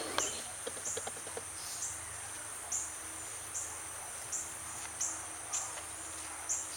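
Insects outdoors: a steady, very high drone, with a short high chirp repeating roughly once a second. A few soft clicks come in the first second or so.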